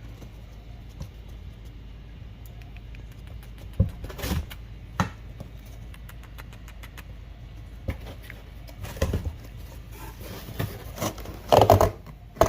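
A kitten pawing and scratching at a cardboard box: irregular scratches and light taps, coming more often and louder toward the end, over a steady low hum.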